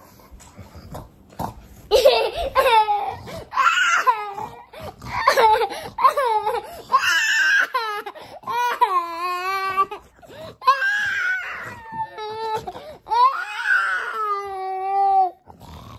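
Young child crying hard: a series of loud, high-pitched wails starting about two seconds in, broken by short shaky sobs.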